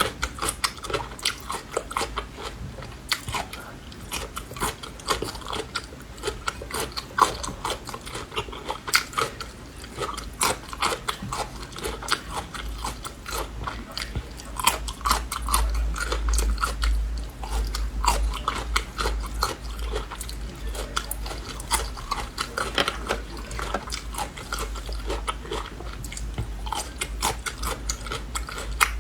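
Close-up crunching of crisp, vinegar-pickled green Laba garlic cloves, bitten and chewed with many sharp, irregular cracks. A low rumble sits underneath, louder in the middle.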